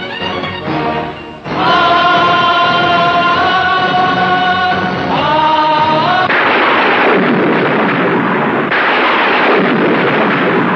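Dramatic film background score. Soft strings give way about a second and a half in to a loud held chord, which shifts pitch midway. It then turns into a dense, noisy swell for the last few seconds.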